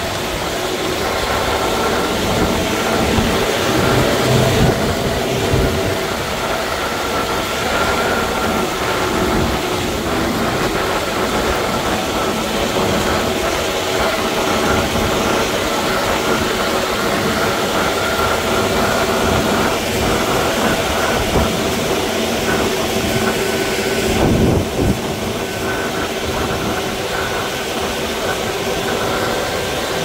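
Heavy road-construction machinery engine running steadily, with a brief louder knock about 24 seconds in.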